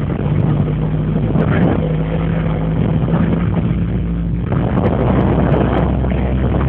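Motorboat engine running steadily with an unchanging low hum.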